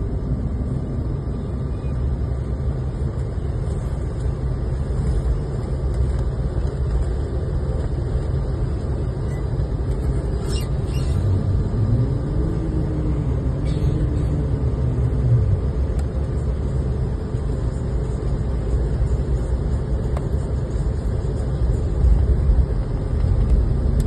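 Airliner cabin noise on the ground after landing: a steady low rumble from the engines and the aircraft rolling. About halfway through, a tone rises and falls over a few seconds.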